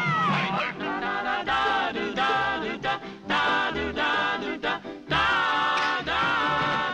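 Cartoon orchestral score with singing voices, in short phrases.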